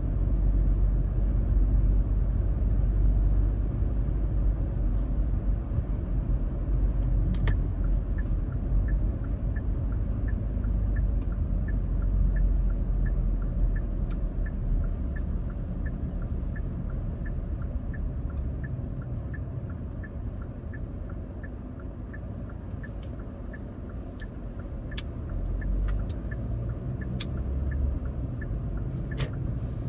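Car cabin noise while driving slowly: a steady low rumble of the engine and tyres. From several seconds in until near the end, a turn-signal indicator ticks about twice a second, with a few sharp clicks scattered through the later part.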